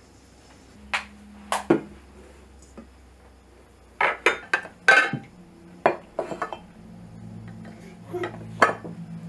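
Enamel pot and ceramic kitchenware clinking and knocking as they are handled and set down on a table: a scattering of sharp clinks, the busiest and loudest cluster about four to five seconds in.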